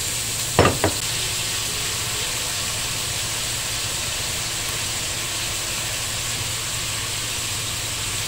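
Food sizzling steadily in a hot frying pan as it is stir-fried, with two quick knocks a little under a second in.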